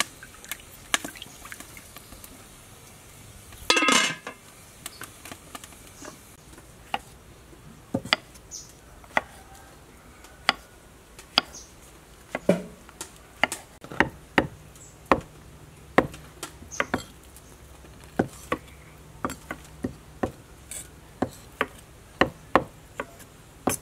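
Kitchen knife and cleaver cutting on a wooden chopping board: sharp knocks, irregular, roughly one or two a second. Near the start a metal spoon clatters briefly in a metal cooking pot.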